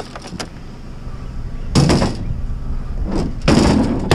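Salvaged items being handled and loaded into a pickup truck bed: a wooden tray and plastic pipe knocking and sliding, with two louder bumps about two seconds in and near the end.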